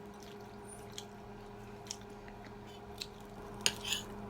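Close-up chewing of crispy dried salted fish (tuyo), with a few small crunching clicks and a louder crunchy bite near the end.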